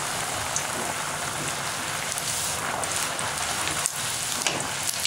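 Rose cookie batter on a metal achappam mould deep-frying in hot oil: a steady sizzle with scattered crackles.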